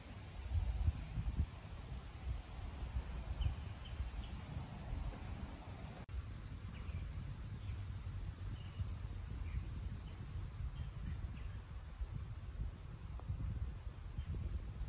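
Outdoor ambience: gusty wind rumbling on the microphone, with birds chirping now and then. After about six seconds, a steady high insect drone joins in.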